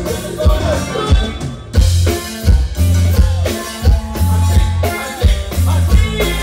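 Live cumbia band playing: an accordion over electric bass and a drum kit, with a strong, regular bass beat.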